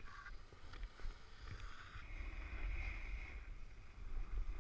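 A snowboard sliding and scraping over groomed snow, a steady hiss that swells about two to three seconds in, with wind rumbling on the camera's microphone underneath.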